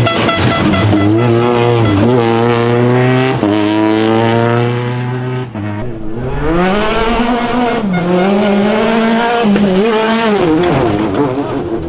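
Rally car engine at full throttle. The note holds steady at first, then climbs and drops sharply at each gear change, then rises and falls several times as the driver lifts and accelerates again.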